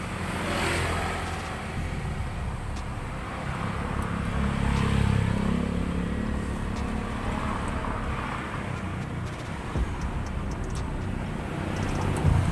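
Low rumble of a motor vehicle engine running, swelling about halfway through and easing off again, with a few faint clicks in the second half.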